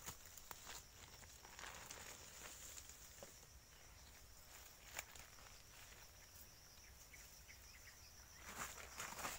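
Faint footsteps and rustling through dry leaf litter and undergrowth, with scattered twig snaps. A thin, steady, high insect buzz runs underneath and fades out about six and a half seconds in. The rustling grows louder near the end.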